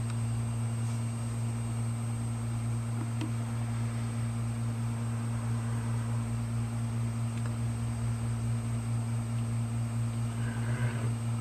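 Steady low hum with a faint high whine above it, from a hard drive spinning on a data-recovery imaging bench, with no head clicking.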